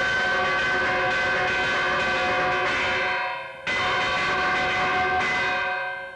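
Droning music of several steady held tones that fades out a little over three seconds in, cuts back in abruptly, and fades again near the end.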